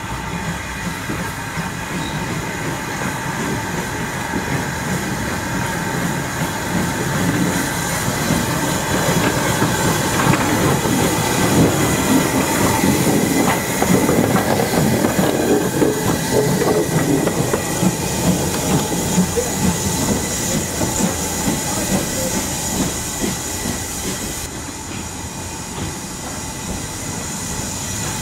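LMS Ivatt Class 2MT steam tank locomotive No. 41312 drawing near and passing close by, its wheels clattering over the rail joints. The clatter builds to its loudest about halfway through, then eases off. It drops abruptly to a quieter rail sound near the end.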